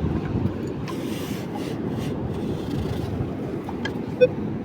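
Steady rustling and wind noise as a metal detector's search coil is swept over dug sand, with a short detector beep about four seconds in.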